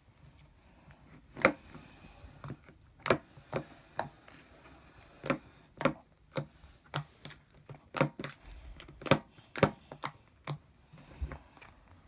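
Slime being squeezed and poked by hand, making irregular sharp pops and clicks as air pockets burst, about one every half second.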